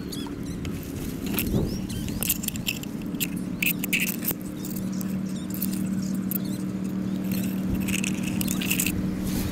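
Scattered scraping and rustling of dry brush and line as hands work at the water's edge, over a steady low hum.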